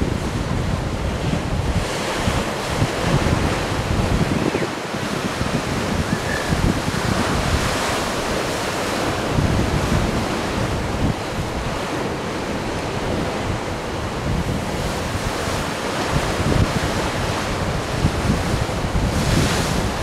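Ocean surf, waves washing in and swelling every few seconds, with wind rumbling on the microphone.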